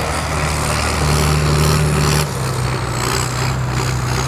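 Large John Deere tractor's turbocharged six-cylinder diesel engine running steadily under load while pulling a plough. About two seconds in, the engine note shifts lower and gets a little quieter.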